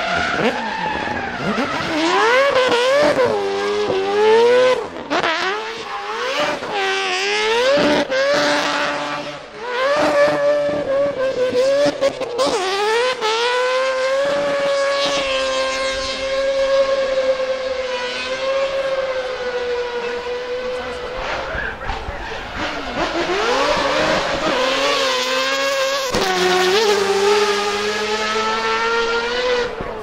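Naturally aspirated, peripheral-ported 26B four-rotor rotary engine in a Mazda RX-7 FD3S drift car, revving hard with quick rises and falls in pitch over the first dozen seconds. It is then held at high revs for about ten seconds while the tyres spin and skid through a smoky burnout. Near the end the revs dip and climb again.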